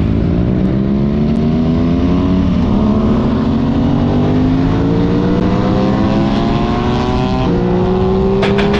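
Aprilia Tuono 660's parallel-twin engine pulling through a gear, its pitch rising slowly and steadily. About seven and a half seconds in it shifts up: the pitch drops briefly, then climbs again.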